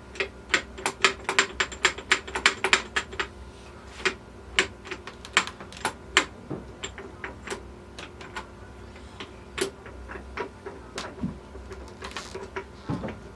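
Metal parts of a T96 transmission clicking and clinking as gears and components are handled and fitted together: a rapid run of sharp clicks for the first three seconds or so, then scattered single clicks.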